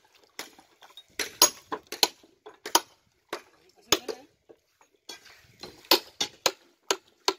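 Hand hammer striking the edge of a Shahabad limestone slab in quick, irregular sharp clinks, chipping the edge to a rough finish; about fifteen strikes, with a short pause about four seconds in.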